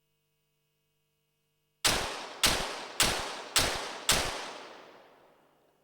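A .22 Short rapid-fire pistol firing a timed five-shot series: five sharp shots in quick succession, a little over half a second apart, each ringing out with an echo that fades after the last.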